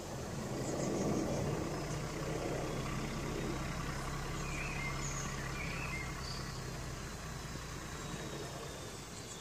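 Paxman diesel engine of a Class 14 diesel-hydraulic locomotive heard running out of sight as a steady low hum, fading away about seven seconds in, with a few bird chirps over it.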